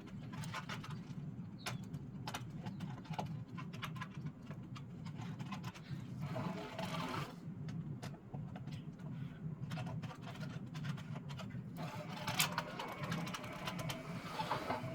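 MIG welding wire being rewound onto a spool on a homemade jig: a steady low hum with many scattered clicks and ticks as the wire runs and the spool turns under tension.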